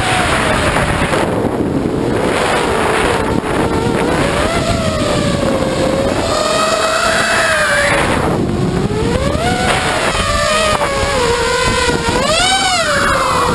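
FPV drone's electric motors and propellers heard from the onboard camera, a whine that rises and falls in pitch with the throttle, climbing sharply about halfway through and again near the end, over a steady rush of wind.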